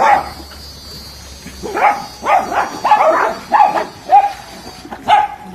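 A dog barking in short pitched barks: one at the start, then after a pause of a couple of seconds a quick run of about six more.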